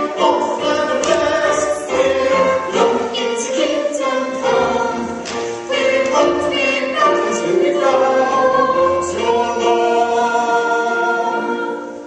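Stage-musical cast singing together as a chorus with accompaniment, in held notes that change every half second or so; the singing dies away near the end.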